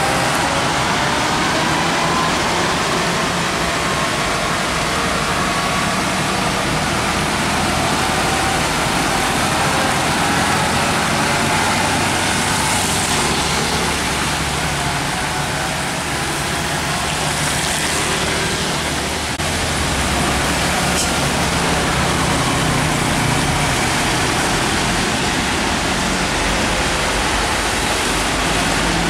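Heavy diesel trucks and motorcycles passing on a rain-wet road: a steady drone of engines mixed with the hiss of tyres on wet asphalt.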